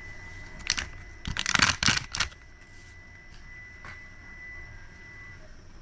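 A click, then about a second of rustling and clattering handling noise, over a faint steady high-pitched whine that stops near the end.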